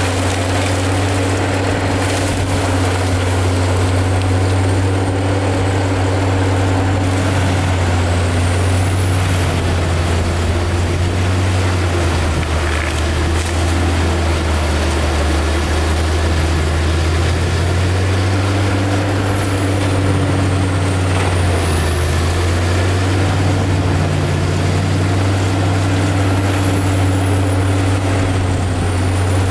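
Prinoth AHWI Raptor 800 tracked forestry mulcher working, its 640 hp diesel engine running with a loud, steady drone while the rotor head grinds stumps and brush. A high thin whine rises about a quarter of the way in and wavers, and the engine note sags lower for a few seconds in the middle.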